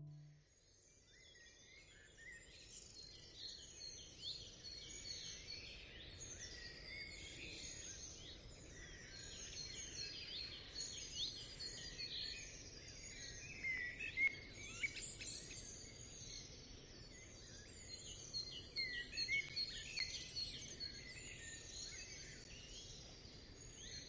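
Woodland birdsong: many birds chirping and whistling at once in a dense, faint chorus over a low steady hiss. It fades in just after the start.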